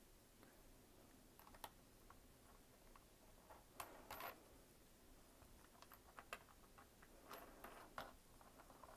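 Faint, irregular clicks and light taps from a small pressboard flower press being handled: its metal wing nuts and corner bolts and the board layers knocking as they are moved.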